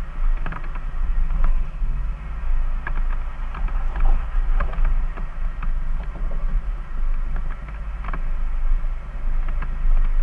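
Jeep's engine running at low revs with a steady rumble while off-roading, with irregular knocks and rattles over rough ground.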